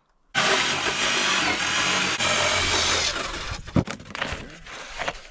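Power saw cutting a rigid foam insulation board in half, starting suddenly and running for about three seconds before it winds down. A few knocks follow as the cut pieces are handled.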